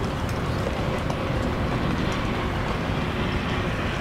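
Steady low rumble of outdoor background noise, with no single clear event standing out.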